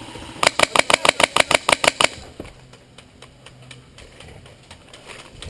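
Burst of about a dozen rapid shots, around eight a second, from a Polarstar compressed-air airsoft MP5A4, lasting about a second and a half. Fainter scattered shots follow.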